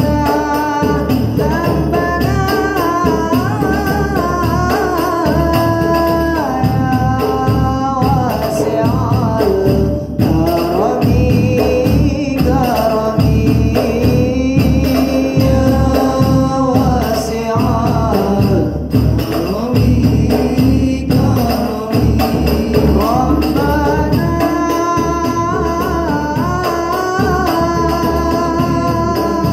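Hadroh ensemble performing: a male voice sings a devotional song over a steady rhythm of hand-beaten frame drums (rebana), with more male voices joining near the end.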